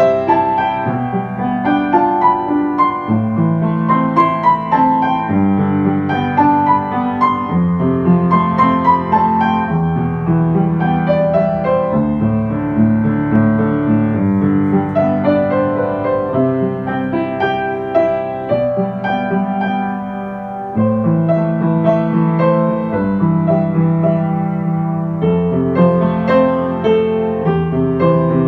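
Ambient piano music: shorter melody notes over sustained low chords that change every couple of seconds, softening briefly near the two-thirds mark.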